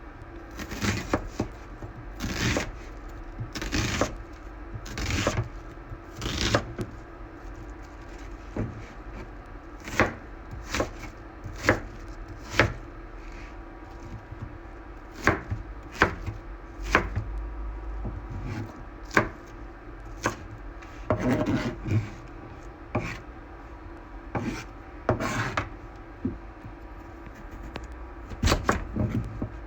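Kitchen knife chopping on a cutting board: single knocks roughly every second, now and then in quick runs of several, over a steady low hum.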